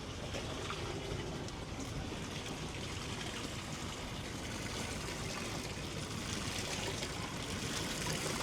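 Choppy sea water sloshing and lapping against the hull of a small fishing boat, a steady wash of noise.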